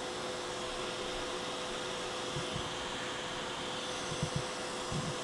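Hot air rework station blowing on a circuit-board chip at its highest heat and airflow setting, heating it until the solder under the pins melts: a steady airy hiss with a faint hum. A few soft low thumps come in the second half.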